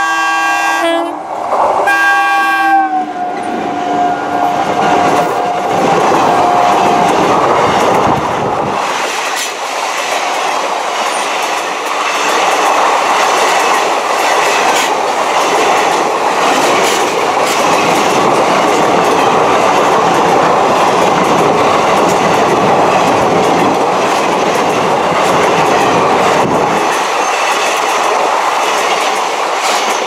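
WAP-4 electric locomotive's horn blaring in long blasts, a short break about a second in, with its pitch dropping as the locomotive passes. Then the express coaches rush by close to the track, wheels clattering over the rail joints, the noise thinning out near the end as the train leaves.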